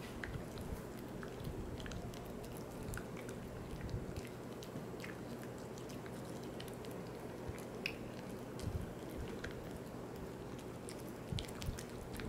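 Poodle gnawing and chewing a Virbac C.E.T. VegiDent dental chew, with irregular wet crunching and clicking bites.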